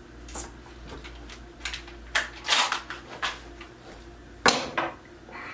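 Scattered clicks and knocks of tools and small metal hardware being handled, about seven in all, with the sharpest knock about four and a half seconds in.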